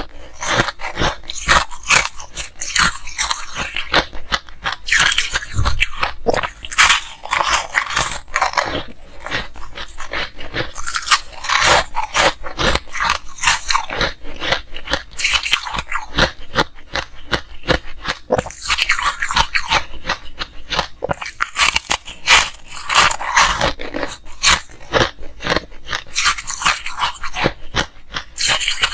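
Ice being bitten and chewed: a dense run of sharp crunches and cracks.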